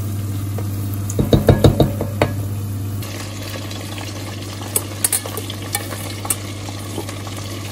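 Spring rolls sizzling in hot oil in a steel pot over a steady hum, with a wooden spatula knocking against the pot about six times in quick succession. A few seconds in the sound changes to a metal spoon clinking against a steel bowl as chicken is turned in breadcrumbs.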